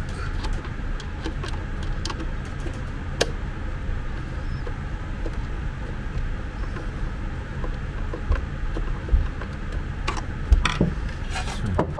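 A screwdriver driving screws into the plastic housing of a portable suction aspirator, with scattered small clicks and taps, over a steady low rumble.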